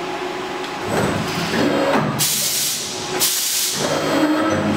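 All-electric CNC tube bender cycling, its servo drives whirring as the bend head and tooling move, with a short rising whine near the end. Two short, sharp hisses come about two and three seconds in.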